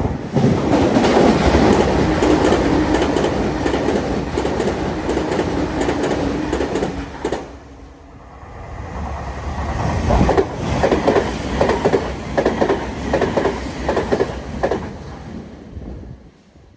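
Tokyu Meguro Line electric commuter trains passing at high speed by a level crossing. A loud rush of wheels on rail dies down about eight seconds in, and then a second pass builds with a regular clickety-clack of wheels over rail joints before fading away.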